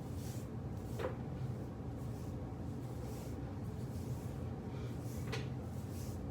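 Steady low hum with two short, soft clicks, about a second in and again near the end.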